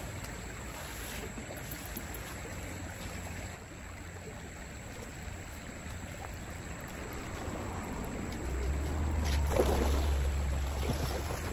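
Shallow creek water running steadily, with wind buffeting the microphone as a low rumble that grows stronger about eight seconds in. A short louder noise stands out near the ten-second mark.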